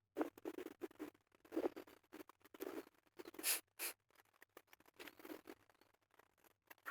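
Irregular scratching and rustling, with two short, sharper hissing scrapes about three and a half seconds in, then fainter scattered scratching.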